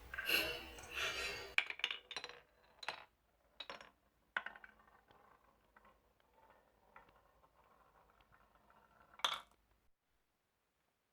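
Marbles rattling and clicking down a marble run: a dense clatter for about the first second and a half, then single clicks and clacks, fewer and farther apart, with one louder clack near the end.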